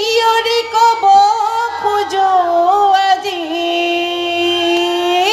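A woman singing into a microphone over a stage PA, ending on a long held note.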